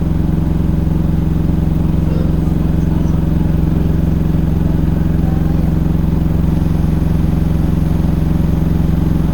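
Samsung washing machine's drum spinning at full speed in its final spin cycle: a loud, steady hum.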